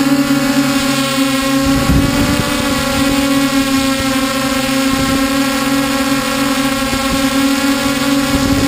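A multirotor drone's electric motors and propellers run with a steady, even-pitched hum, heard from the camera mounted on the drone. Wind buffets the microphone about two seconds in and briefly again near five seconds.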